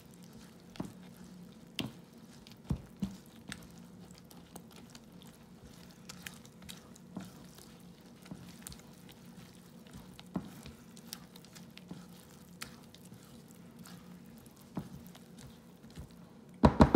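A spatula stirring wet oat pancake batter in a bowl: soft squishing with scattered light clicks of the spatula against the bowl, over a low steady hum. Near the end comes a quick run of louder knocks.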